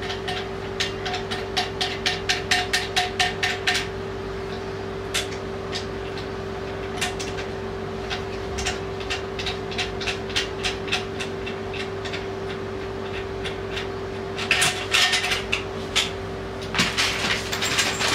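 Sharp clicks and taps of hard fitting parts as a non-electric bidet seat's mounting hardware is worked on at the back of a toilet bowl. They come quickly, about four or five a second, for the first few seconds, then scattered, with two short bursts of rattling near the end. A steady low hum runs underneath.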